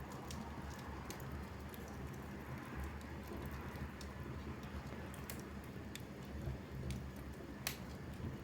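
Wood fire in a fireplace crackling, with scattered sharp pops and ticks over a low steady rumble; the loudest pop comes near the end.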